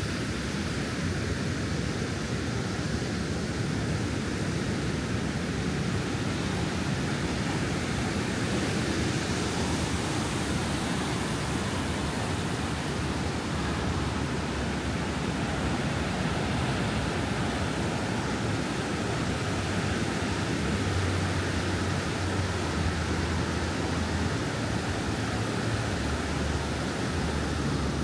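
Ocean surf washing onto a beach: a steady, even rush of noise.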